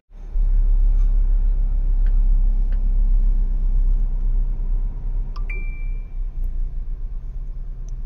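Steady low rumble of a car's cabin on the move. About five and a half seconds in, a short chime from an iPhone, the sound that confirms an App Store download after the side-button double-click.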